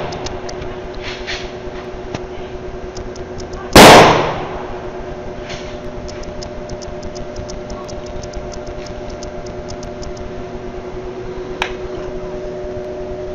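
Rifle volley fired by a military funeral honor guard: one loud, sharp report about four seconds in, with a short echoing tail.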